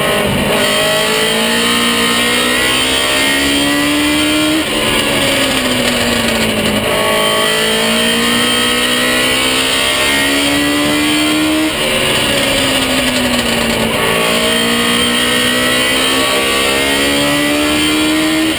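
Baby Grand race car's engine heard from inside the cockpit under racing load, its pitch climbing for several seconds on each straight and falling as the throttle is lifted for the turns, a cycle that repeats about every six to seven seconds.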